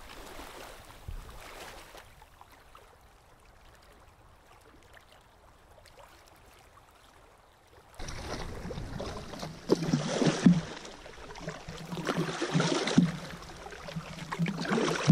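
Canoe moving across open water under paddle. At first only faint water sounds against the hull; about eight seconds in, louder water splashing and slapping around the canoe in surges every two to three seconds, in time with paddle strokes.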